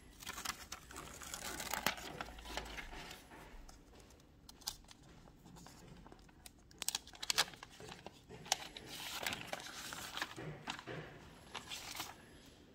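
Clear protective plastic film being peeled off the aluminium back of a new Apple iPad, crinkling and crackling in two spells with a few sharp snaps between them.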